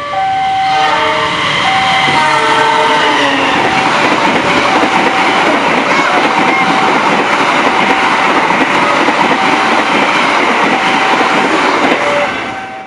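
A train passing over a level crossing: its horn sounds for the first few seconds, then the steady rumble and clatter of the train fills the rest and fades near the end. Underneath, the crossing's electronic warning alarm keeps alternating between two tones.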